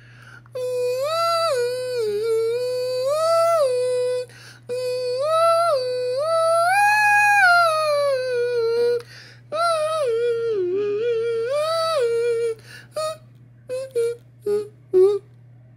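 A man humming a waiting tune with closed lips, a melody that steps up and down and then slides slowly downward, stopping about twelve seconds in. A few short separate sounds follow near the end, and a steady low hum runs underneath throughout.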